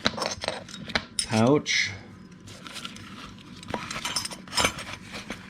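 Small metal wrench and socket clinking and rattling as they are handled in a vinyl pouch, with a few sharp clicks.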